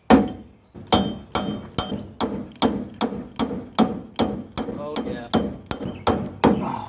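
Rubber mallet striking a steel trailer hitch receiver again and again, about two and a half blows a second, driving the super tight receiver into place on the frame.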